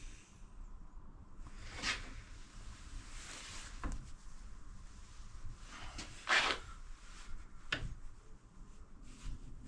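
Handling noises at a steel bench vise: short scrapes about two, three and six seconds in, the one at six seconds the loudest, and a sharp metal click near the end.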